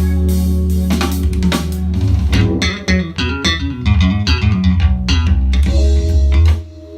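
Instrumental music with guitar, bass and drums, played in stereo through a pair of Klipsch RP-150M bookshelf speakers and picked up in the room by a phone. It falls to a much quieter passage about six and a half seconds in.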